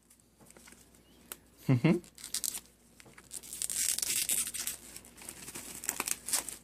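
Plastic shrink wrap being torn and peeled off a DVD box set, crinkling and crackling, thickest from about halfway through. A brief short vocal sound just before the two-second mark.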